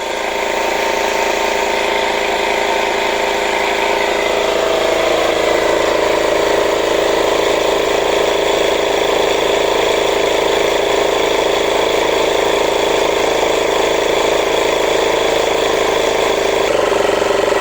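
Small electric air pump running steadily, pre-charging a reverse osmosis storage tank with air to about 20 psi. Its tone shifts slightly near the end.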